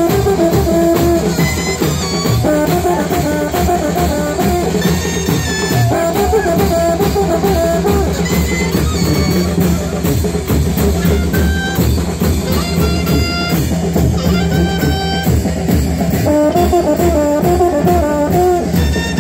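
Brass band with drums playing a lively, repeating dance tune of the kind chinelo dancers leap to (the brinco del chinelo).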